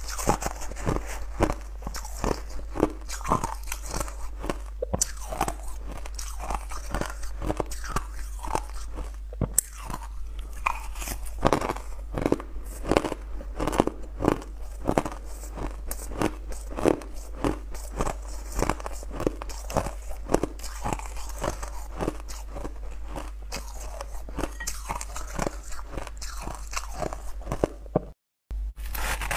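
Crushed ice being crunched and chewed between the teeth, close to a clip-on microphone: a dense run of sharp, irregular cracks several times a second. The sound cuts out briefly near the end.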